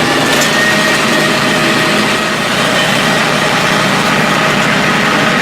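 Bulldozer's diesel engine running steadily at a loud, even level.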